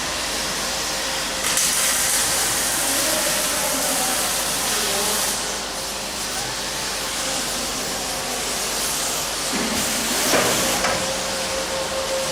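Automatic MIG arc welding machine welding a shock absorber bracket: the arc gives a steady hiss and crackle, louder between about one and a half and five seconds in. A steady hum grows stronger near the end.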